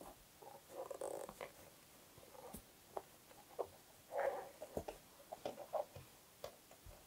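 Faint soft rustles of thick 10 mm cord yarn being drawn through loops with a crochet hook, scattered with light clicks and taps.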